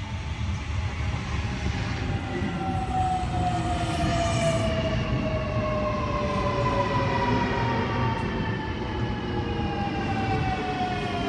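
Sydney Trains M set (Millennium) electric train pulling into the platform, its motor whine falling steadily in pitch as it slows to a stop, over a low rumble of wheels on rail.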